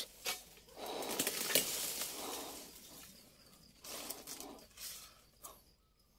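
Faint scraping and rustling in several short bouts after an opening click: an oil palm harvester's pole chisel (dodos) working at the fronds and bunch stalk in the palm crown.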